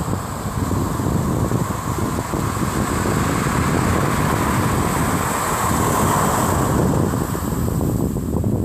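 Atlantic surf breaking and washing on a sandy beach: a continuous rushing noise that swells louder in the middle, with wind buffeting the microphone underneath.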